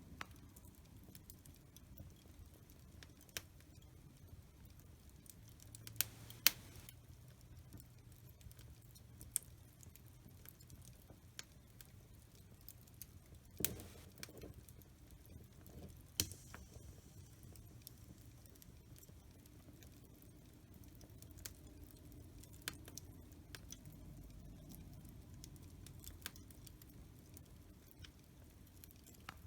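Wood fire crackling in a fireplace: scattered sharp pops and snaps of uneven strength over a low, steady rumble of the flames, with a few louder pops now and then.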